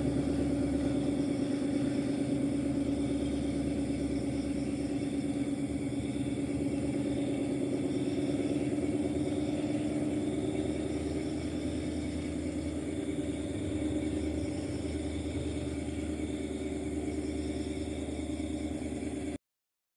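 Steady low drone of a diesel railway locomotive's engine out of view, fading slowly, then cutting off suddenly near the end.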